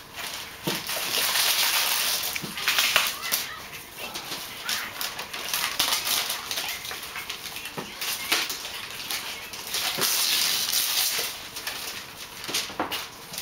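Wrapping paper being torn and crumpled off a gift box by a toddler, in several rustling spells a second or more long.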